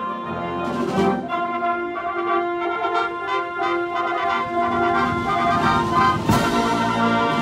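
Military brass band of trombones, cornets and euphoniums playing a fanfare in full harmony, with two sharp hits, about a second in and near the end.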